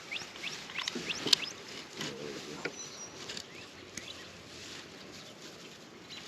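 Wild birds chirping with many short, quick falling notes, thick at first and thinning out after about a second and a half, with a sharp click about a second and a half in.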